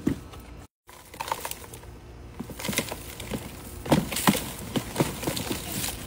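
Black plastic grow pot of potting soil being tipped over into a plastic tub: crackling, scraping and knocking of soil and plastic, loudest about four seconds in.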